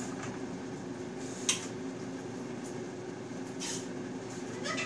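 A metal utensil clinks sharply against a wok once about a second and a half in, with a softer clink or scrape later, as stir-fried noodles are lifted and tossed; a steady low hum runs underneath.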